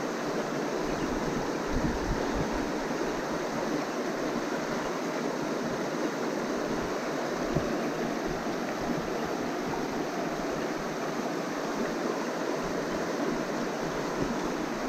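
Shallow creek water running over rocks: a steady rushing with no breaks.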